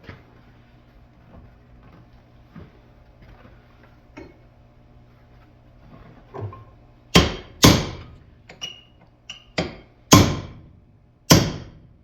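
Hammer blows on a steel punch, driving the knurled hinge pin out of a 1968 Pontiac Firebird upper door hinge held in a vise. A few light taps come first, then from about halfway through there are around half a dozen hard, ringing strikes.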